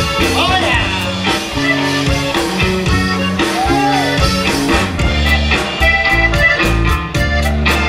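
Live conjunto band playing: button accordion melody over guitar, electric bass and drums keeping a steady beat.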